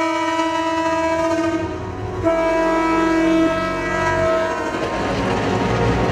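Diesel locomotive's air horn sounding two long blasts, the second starting a little after two seconds in. Then the locomotive and coaches rumble and clatter past close by.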